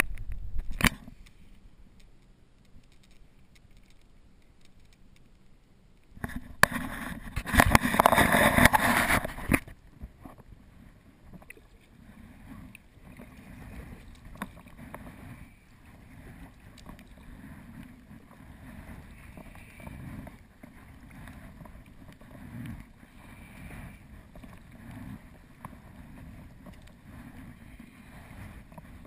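Water sloshing and lapping around a sea kayak, swelling and fading irregularly. A few seconds in, a loud rushing noise covers it for about three seconds.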